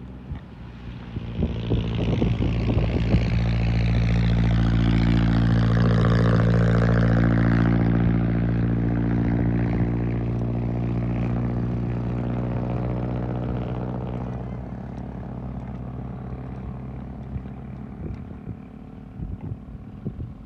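A motor engine running with a steady pitch, growing louder over the first few seconds and then slowly fading away, as if passing by. There are a few short clicks near the start.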